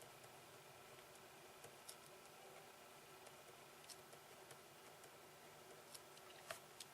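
Near silence: room tone with a few faint, light ticks scattered through it.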